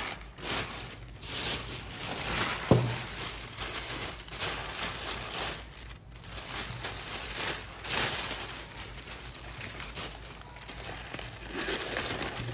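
Newspaper and a plastic carrier bag rustling and crinkling as hands unwrap a clay pot, with one sharp knock nearly three seconds in.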